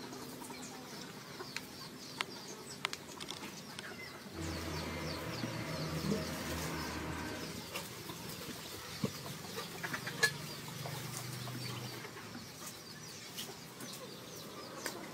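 Outdoor ambience of chickens clucking, with small birds chirping faintly and scattered light clicks. A low hum comes in about four seconds in and fades out around twelve seconds.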